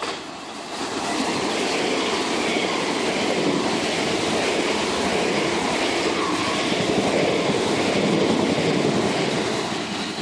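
Southern Class 377 Electrostar electric multiple-unit train running past the platform: a steady, loud rush of wheels on rail that builds about a second in and eases off near the end as the train draws away.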